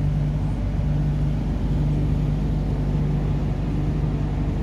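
MTR Kwun Tong Line Q-Train heard from inside the car: a steady running rumble with a low, even hum that neither rises nor falls.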